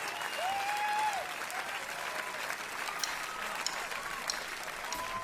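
Concert audience applauding and cheering before the song starts, with a few whistles or shouts rising out of the clapping.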